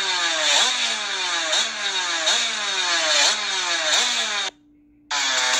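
Small two-stroke motorcycle engine revved in quick repeated blips, about one every two-thirds of a second, each one jumping up in pitch and falling back, over a steady drone. The sound cuts out for about half a second near the end, then comes back as steady tones without the revving.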